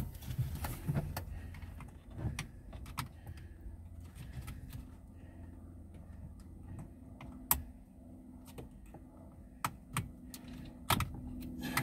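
Irregular small clicks and taps of a screwdriver working against the plastic clip of a wiring connector under a Smart Forfour's steering-column stalk housing, with a few sharper clicks in the second half over a faint low hum.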